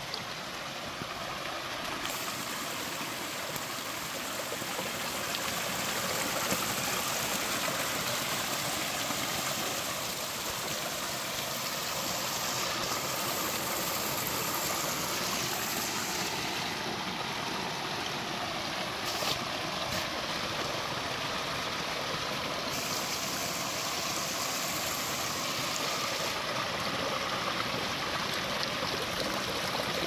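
Mountain stream spilling down a small cascade over mossy rocks, a steady rush and splash of water.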